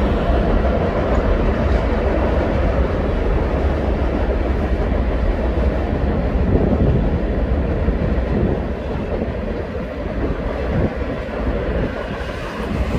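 Passenger cars of a Kansas City Southern office car special rolling across a steel girder viaduct: a steady rumble of wheels on rail that eases off slowly over the last few seconds.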